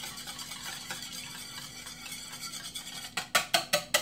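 Wire whisk beating eggs and milk in a ceramic bowl: soft swishing at first, then, from about three seconds in, a steady run of clinks, about five a second, as the wires strike the bowl.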